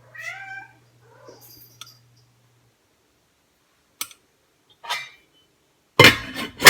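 A cat gives a short rising meow at the start. About six seconds in, two loud sharp bangs with a metallic ring follow: the first popcorn kernels popping against the lid of a pot on the stove.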